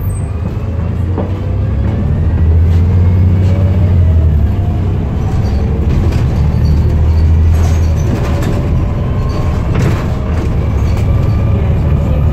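Volvo B7TL double-decker bus pulling away and accelerating, heard from the upper deck. Its six-cylinder diesel gives a steady low drone, under a transmission whine that climbs in pitch twice as the bus goes up through the gears, with scattered rattles and clicks from the bodywork.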